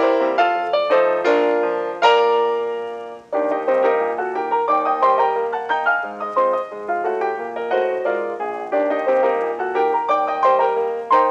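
Ragtime piano background music, a quick run of notes; about two seconds in one chord is left to fade out, then the tune picks up again.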